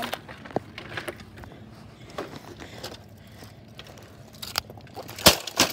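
Light clattering and rustling of broken plastic TV pieces in grass, with one sharp knock about five seconds in.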